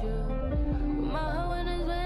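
Background music: a slow song with a sung melody that glides between notes over a steady low bass.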